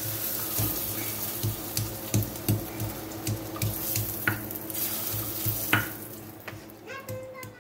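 A slice of smoked beef sizzling in a hot nonstick frying pan, with metal tongs clicking against the pan about three times a second as the slice is turned and lifted. The sizzle and clicks fade near the end.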